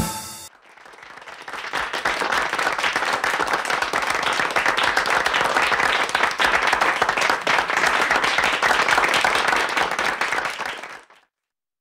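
Audience applauding after the song ends. The clapping swells over the first couple of seconds, holds steady, and then cuts off abruptly near the end.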